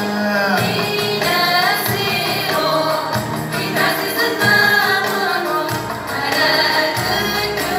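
Kabyle song performed live: singing with a sliding, ornamented melody over band accompaniment.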